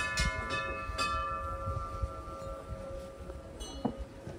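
Metal temple bells struck several times in quick succession, their tones at several pitches ringing on and slowly fading; one lighter strike near the end.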